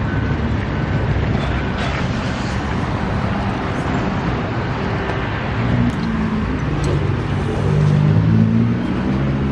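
Steady road traffic and car engine noise, with an engine sound swelling briefly near the end.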